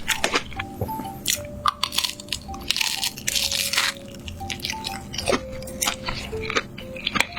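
Crunchy food being bitten and chewed close to the microphone, in a quick run of crisp crunches, over light background music.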